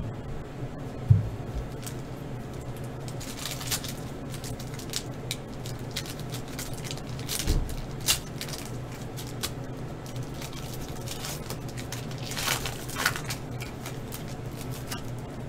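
Foil trading-card pack crinkling and tearing open by hand, with cards being handled, in short crackly bursts over a steady low hum. A thump about a second in.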